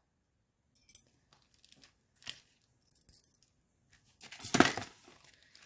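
Small metal jewelry being handled and clinking: a few light clicks, then a louder burst of handling noise about four and a half seconds in.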